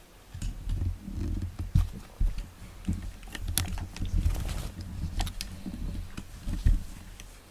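A cat rubbing and bumping against the camera, its fur scuffing over the microphone in low, uneven rumbles with sharp clicks and knocks, starting about half a second in.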